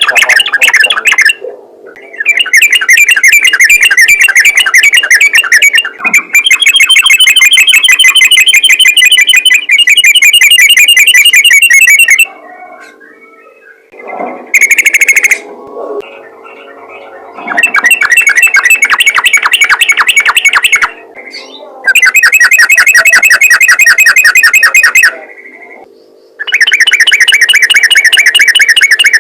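Sooty-headed bulbul (trucukan) singing its rapid 'ropel' song: loud runs of fast repeated notes lasting a few seconds each, broken by short pauses, with one brief burst near the middle. A steady low hum runs underneath.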